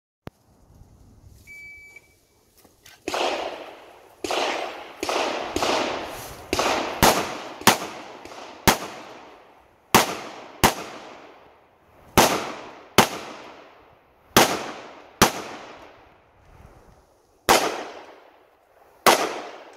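A shot timer beeps once, then a handgun fires a string of about eighteen shots, some singly and some in quick pairs, each with an echoing tail.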